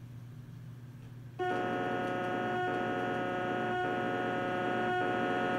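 A steady, horn-like moaning tone from a faulty VHS tape's soundtrack, played through a TV speaker. It starts about a second and a half in and holds, its lower part dipping briefly about once a second, over a low steady electrical hum.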